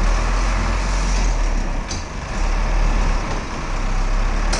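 Old bus engine running steadily as the bus drives along, heard from inside the cabin near the front, with two brief sharp sounds, one about two seconds in and one near the end.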